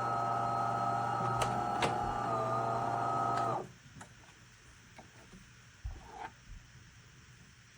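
De'Longhi Magnifica Start espresso machine running with a steady, even-pitched mechanical hum that cuts off about three and a half seconds in, followed by a few faint clicks.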